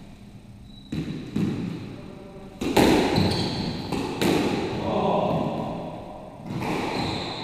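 Squash ball struck by rackets and smacking off the court walls and floor during a short rally: several sharp, echoing hits spread over a few seconds.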